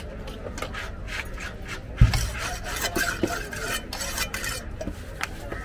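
A long fish-cutting knife being sharpened on a handheld steel rod: repeated quick scraping strokes of blade on metal. There is a single heavy thump about two seconds in.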